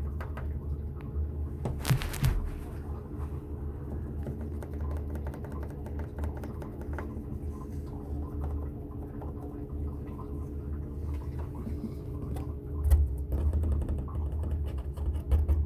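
A cat's claws scratching and tapping at a door, many small irregular clicks and scrapes with a louder scrape about two seconds in, over a steady low hum.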